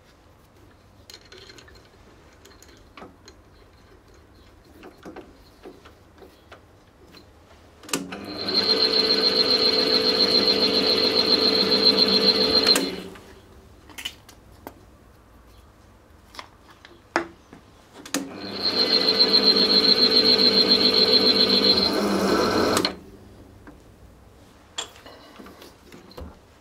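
Bench drill press motor switched on twice, running for about four to five seconds each time with a high whine over a steady buzz, then spinning down, while drilling the set-screw hole in a pulley hub. Small clicks and knocks from handling the chuck and bit come before, between and after the runs.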